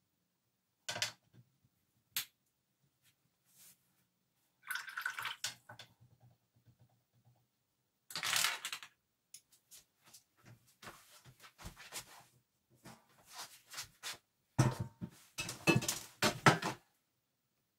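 A watercolour brush being rinsed in a water jar: splashes and drips, with small clicks and knocks as brushes and tools are handled on the painting table. The sounds come in short scattered bursts and grow busier and louder near the end.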